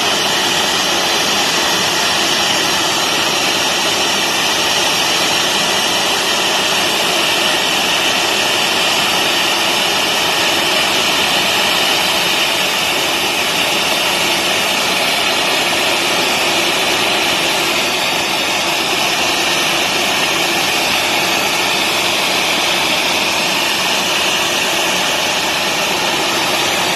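Jet turbine noise from a Boeing 737 airliner standing on the apron: a steady high whine over an even rush that does not change.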